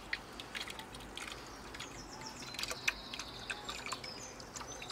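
Water pouring from the outlet pipe of a pond's raised bog filter into the pond below, a steady trickling splash with small drips.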